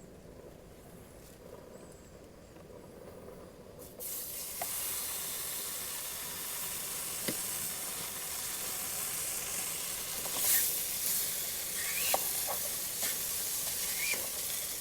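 Bologna slices frying in a hot pan: a loud, even sizzle starts suddenly about four seconds in, with scattered pops and crackles.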